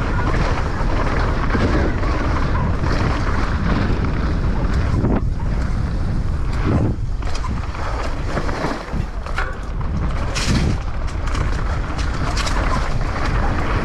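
Wind rushing over the microphone and steady tyre roar from a Specialized Demo downhill mountain bike riding fast down a trail. A few sharp knocks and rattles from the bike come over rough ground about halfway through and again near the end.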